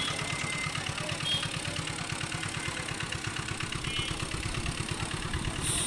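A small engine idling with a steady low chugging pulse, with a few brief high peeps over it.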